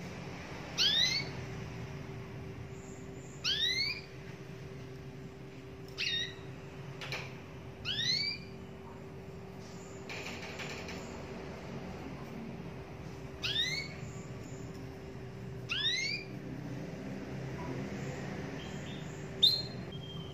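Domestic canary giving short rising call notes one at a time, each a quick upward whistle, about seven in all spaced a few seconds apart.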